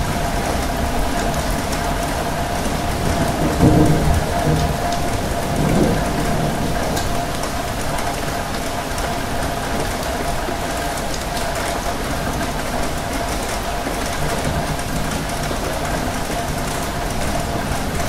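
Steady rain falling on a wet surface, an even hiss of drops. A brief low rumble rises over it about four seconds in, and a smaller one follows near six seconds.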